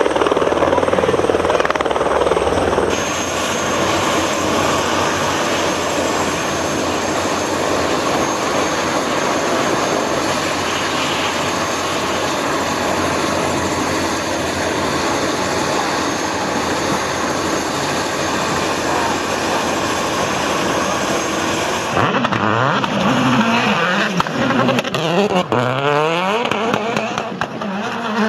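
Turbine helicopter running on the ground with its rotor turning: a steady whine and rotor noise. About 22 seconds in this cuts to a Citroën rally car's engine revving up and down as it spins donuts.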